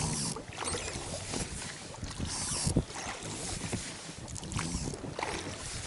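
A small boat being rowed on a river: oars dip and splash, with a few light knocks from the oars and boat. Two louder swishes come near the start and about two and a half seconds in.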